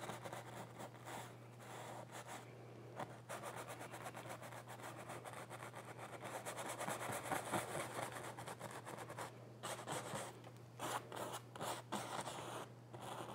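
Bristle filbert brush scrubbing oil paint into stretched canvas: a soft, continuous rubbing made of many quick short strokes, over a low steady electrical hum.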